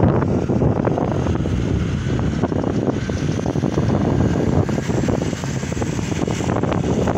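Wind buffeting the microphone: a steady, loud low rumble with irregular crackling.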